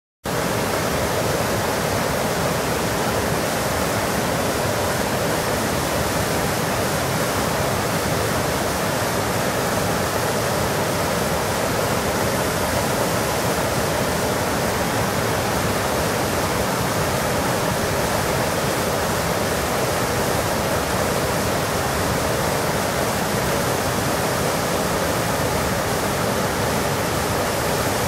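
Mountain stream pouring over a three-tier stepped concrete weir: a steady rush of falling water.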